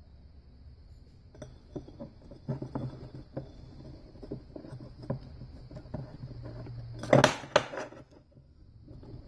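Light clinks and taps of an aluminium transmission part shifting on a steel workbench as a seal is worked onto it by hand, with a cluster of louder metallic clatters about seven seconds in.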